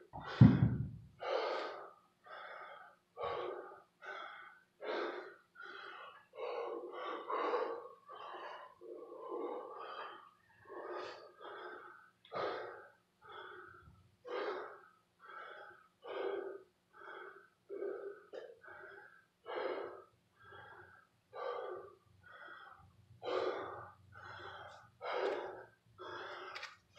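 A man breathing hard and fast, out of breath from kettlebell swings, in short heavy gasps about one and a half a second. About half a second in comes a single heavy thud as the kettlebell is set down on the floor.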